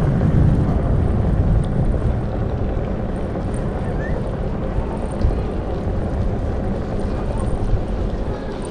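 Steady low rumble of wind buffeting the microphone during a bicycle ride, loudest in the first second and easing a little after.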